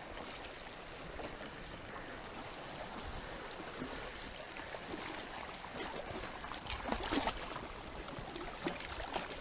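Sea water washing and trickling over shoreline rocks, a steady hiss, with a couple of faint knocks about seven seconds in.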